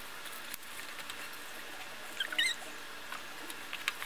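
Small objects being handled: scattered soft clicks and taps, with a brief high squeak about two seconds in, over a steady hiss.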